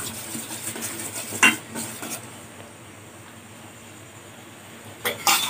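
A steel spoon stirring melting soap base in a steel bowl set in a double boiler, clinking against the bowl a couple of times about a second and a half in and again in a quick cluster near the end, over a faint steady hiss.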